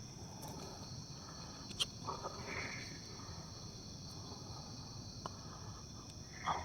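Night insects, crickets, chirring in a faint steady high-pitched chorus, with a few faint short sounds about two seconds in and near the end.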